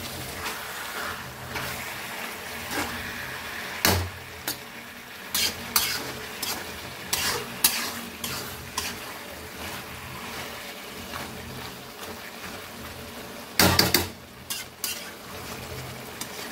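Flat metal spatula stirring chicken and gongura leaves in a kadai: irregular scrapes and knocks of the spatula against the pan over a steady low sizzle of frying. The loudest knocks come about four seconds in and in a quick cluster near fourteen seconds.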